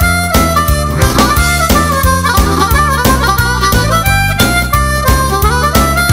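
Background music: a blues-style tune led by a harmonica, over a steady beat.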